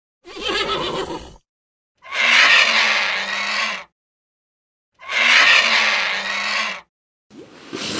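A horse's whinny ends about a second in. Then come two loud, hoarse vulture calls of nearly two seconds each, identical in shape and a few seconds apart.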